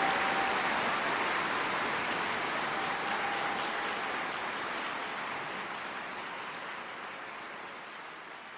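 Steady rushing noise that fades out slowly.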